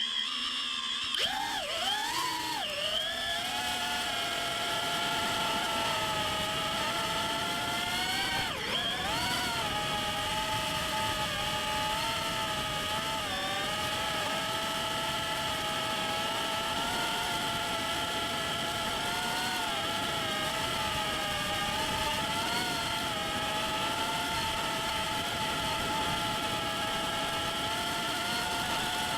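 Darwin FPV CineApe 35 cinewhoop's brushless motors and propellers whining, the pitch swooping up and down as the throttle changes in the first few seconds and again about eight seconds in, then holding fairly steady with small wobbles over a steady rushing noise. The owner suspects one motor's bearing is starting to make noise.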